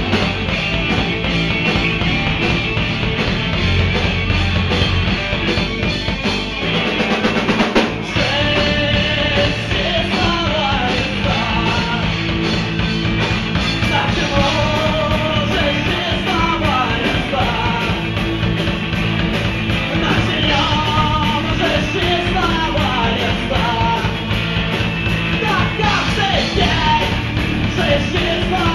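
Live rock band playing loud: electric guitars, bass and drum kit, with a drum fill about seven seconds in, after which a male lead vocalist sings over the band.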